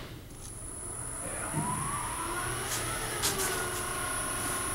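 Wood lathe's motor starting up: a whine rising in pitch about a second in that levels off into a steady high hum as the workpiece comes up to speed, with a couple of light clicks.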